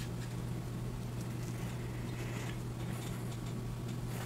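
Faint light clicks and rustles of thin laser-cut wooden pieces being handled and set down on a wooden tabletop, over a steady low hum.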